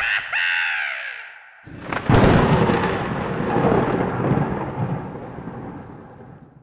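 Thunder sound effect: a short falling sweep, then a sudden loud crack about two seconds in, followed by a long rumble that slowly fades away.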